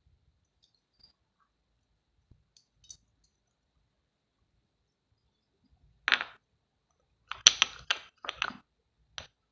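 Sharp clinks and taps of small hard objects, a quick run of about half a dozen starting some six seconds in, with one more near the end.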